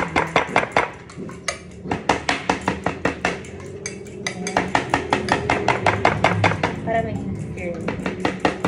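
Back of a kitchen knife tapping rapidly on thin pork slices, about five or six knocks a second in several runs with short pauses between them: the meat is being tenderised for tonkatsu.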